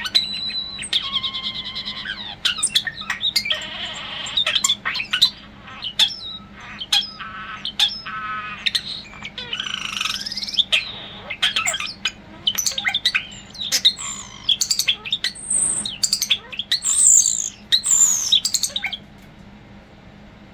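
European starling singing a fast, varied song of sharp clicks, whistles, rattles and gliding notes, which stops about a second before the end.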